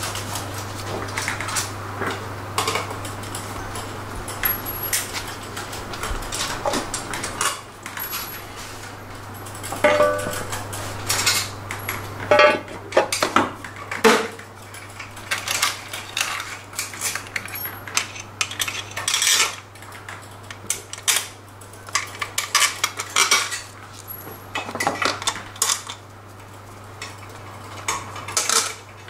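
Irregular metallic clinks, knocks and scrapes as the metal CVT transmission cover of a SYM CruiSym 300 scooter is handled and fitted back over the belt drive, some clinks ringing briefly. A steady low hum runs underneath.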